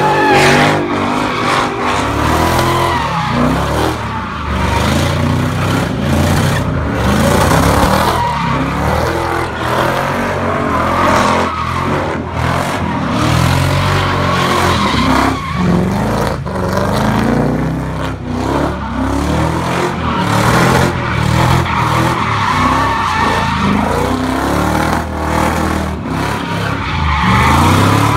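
Cars doing donuts and slides, with engines revving up and down over and over and tyres squealing and skidding. A car sweeps close past near the start.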